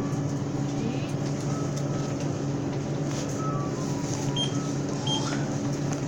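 Steady low machine hum, with a few short, high electronic beeps about four to five seconds in.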